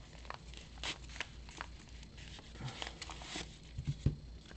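Yellow padded bubble mailer being torn open along its tear strip and the package inside pulled out: a string of short paper rips and crinkles with light taps, and a couple of louder knocks about four seconds in.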